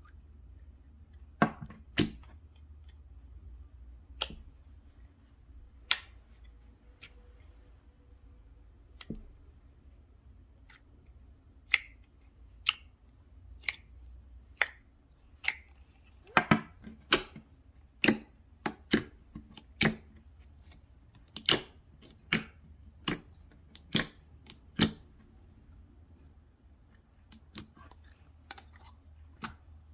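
Slime being pressed and poked by hand, trapped air popping in sharp clicks. The clicks are sparse at first, then come quickly, a couple a second, from about halfway through.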